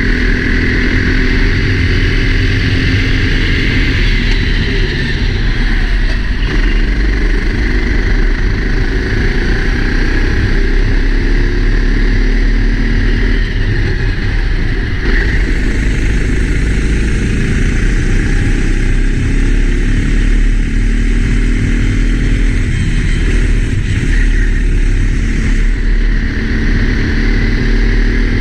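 Four-stroke Sodi racing kart engine running hard on track, its pitch rising and falling repeatedly as the driver accelerates and lifts, heard close up from a helmet-mounted camera.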